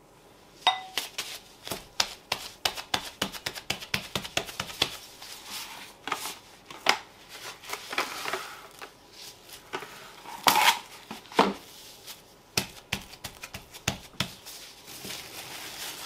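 Cling film and disposable plastic gloves crinkling and crackling as dough is pressed flat and wrapped. The sharp clicks come thick and fast over the first few seconds, then more sparsely, with a louder crackle of film about ten seconds in.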